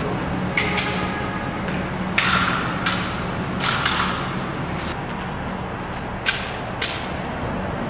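About eight sharp, echoing clicks and knocks at irregular intervals, over a steady low hum.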